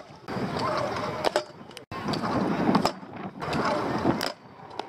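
Stunt scooter wheels rolling over concrete, with several sharp clacks from the deck and wheels striking the ground and coping.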